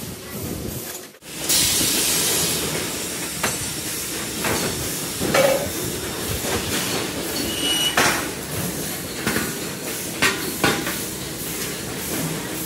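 Rickshaw factory workshop noise: a steady hiss with scattered metallic clanks and knocks. The sound changes abruptly about a second in.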